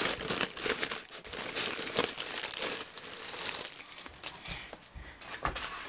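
Clear plastic wrapping crinkling and crackling as a paper instruction sheet is pulled out of it.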